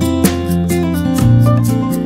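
Jingle music with strummed guitar over a steady, even beat, accompanying the channel's logo ident.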